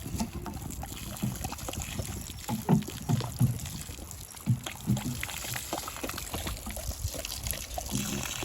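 Water sloshing and being poured out for wolves to drink, with irregular dull knocks.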